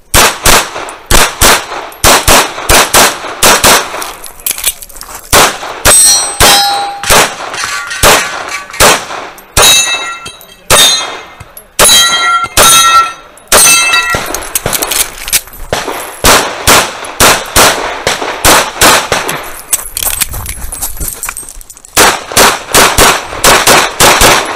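Tanfoglio Stock 2 pistol firing rapid strings of shots, mostly in quick pairs, with short breaks between strings. Struck steel targets ring out after several shots in the middle stretch.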